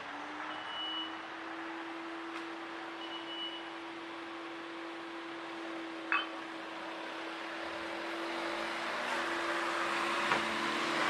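Street ambience: a steady mechanical hum starts up and runs on, with two short high beeps in the first few seconds and a sharp click about six seconds in. A broad rushing noise, like passing traffic, swells near the end.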